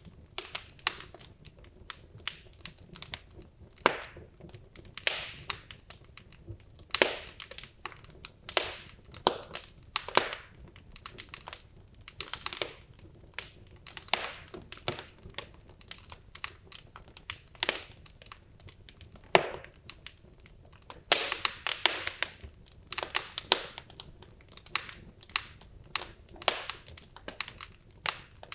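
Wood logs burning in a fireplace, crackling with irregular sharp pops and snaps, some followed by brief hisses, a dense cluster of them about three quarters of the way through.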